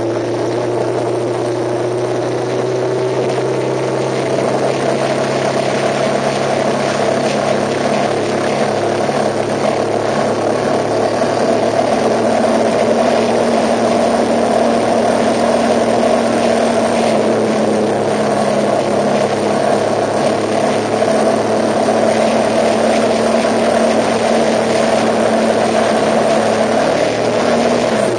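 A moving vehicle's engine running steadily with road noise, its note rising slightly and growing a little louder about twelve seconds in.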